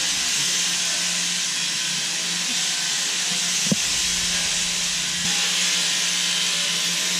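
Electric sheep-shearing handpiece running steadily with a hiss and a low motor hum, with one short knock about halfway through.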